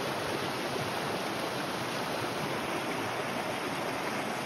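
Small mountain creek flowing over rock ledges and a little cascade: a steady, even rush of water.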